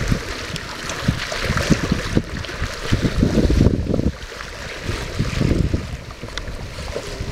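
Wind buffeting the microphone in uneven gusts, over water rushing and splashing along the hull and outrigger float of a Wayland Ursus IV sailing kayak under way.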